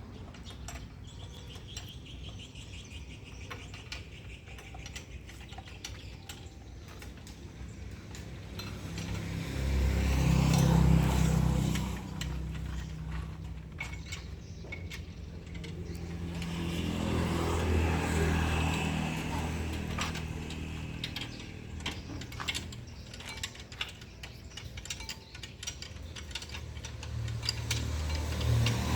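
An engine running, louder twice, about ten seconds in and again around the seventeen-second mark, with scattered metallic clicks and clinks.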